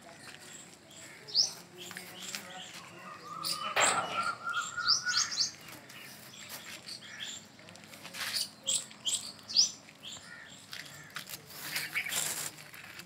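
Small birds chirping in short, high, rising chirps, again and again, with the rustle and knock of rope being pulled and threaded through the rope-weave of a wooden charpai frame.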